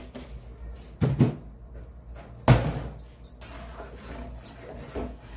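Steel ladle knocking against a steel kadai as paneer gravy is stirred: two sharp knocks about one and two and a half seconds in, the second the loudest, then softer stirring sounds and a lighter knock near the end.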